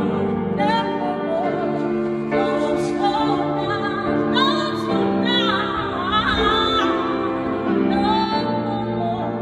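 A woman singing with grand piano accompaniment: sustained piano chords under held sung notes that waver with vibrato.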